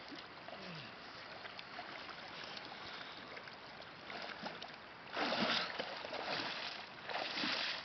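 Water swirling and lapping as a swimmer moves through a lake, turning into louder splashing and sloshing about five seconds in and again near the end as he wades out through the shallows.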